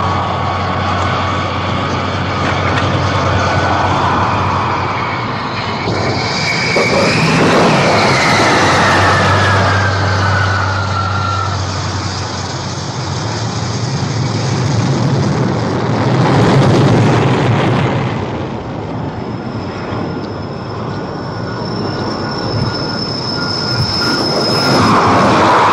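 Jet aircraft engines running on a carrier flight deck: a steady noise under high turbine whines, one falling in pitch from about seven seconds in and another steady whine from about nineteen seconds in.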